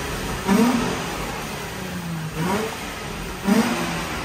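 Infiniti G35 sedan's 3.5-litre V6 on its stock exhaust, idling with three short throttle blips, each rising and falling in pitch. This is the car before its muffler delete.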